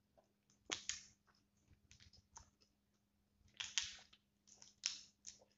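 Shell of a cooked garlic prawn being peeled apart by hand: faint clicking and crackling, with louder crackles about a second in, near four seconds and near five seconds.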